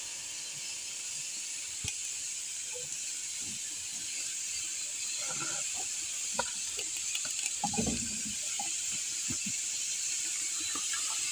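Small whole fish hissing and sizzling on a wire grate over glowing charcoal, growing slightly louder as more fish go onto the grill, with a few faint clicks as they are set down.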